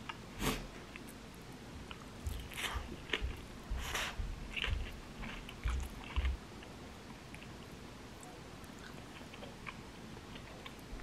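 A person chewing and biting a mouthful of bean sprout rice with braised flounder, with short sharp clicks of chopsticks and a wooden spoon on the pot; the sounds come in a cluster over the first six seconds, then grow sparse and faint.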